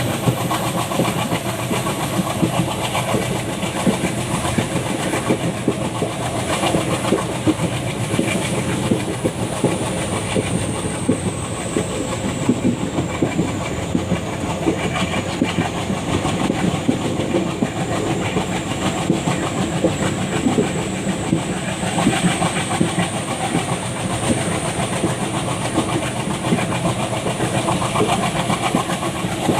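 Moving train heard from the floor of a coach just behind an ALCO WDG3A diesel locomotive: wheels clatter steadily over the rail joints under the continuous running of the locomotive's diesel engine. A faint high whine sinks in pitch midway and climbs back near the end.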